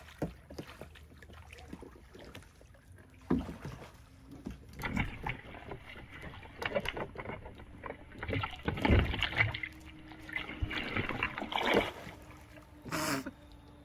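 Water splashing and sloshing, with knocks against an Oru folding kayak's hull, as a swimmer hauls herself into the empty kayak from the water. Irregular surges begin about three seconds in, and a short sharp splash comes near the end.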